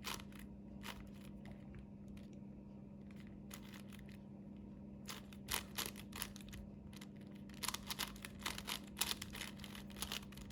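Plastic clicking and clacking of a 5x5 Rubik's Cube's layers being turned by hand: scattered turns at first, then quicker runs of turns from about halfway. A faint steady hum underneath.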